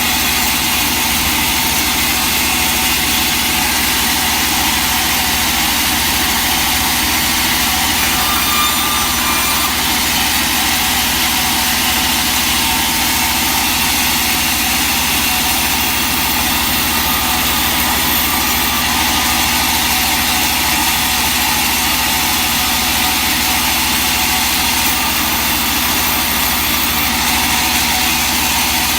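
Sawmill machinery running steadily, a constant engine-like drone that does not change.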